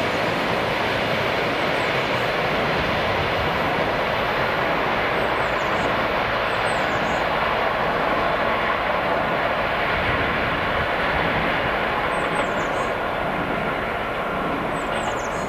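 ED4M electric multiple unit running away along the track, a steady rumble of wheels and running gear that eases off slightly near the end. A few short high bird chirps.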